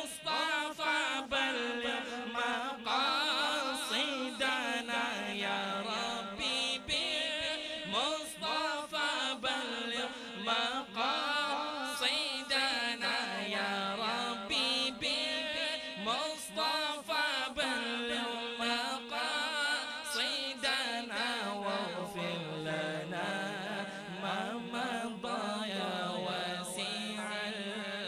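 A male reciter's amplified voice leads a crowd of men chanting a devotional naat together. The sustained melodic chanting is sung in unison and runs without pause.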